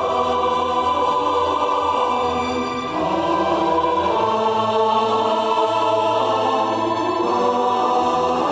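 A choir singing a long wordless "ahh" in held notes, moving to new notes about three seconds in.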